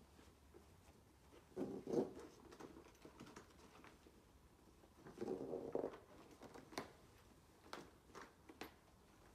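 Stretcher straps being pulled and readjusted on a roll-up rescue stretcher: two short spells of rustling and scraping of webbing and fabric, then a few sharp clicks near the end.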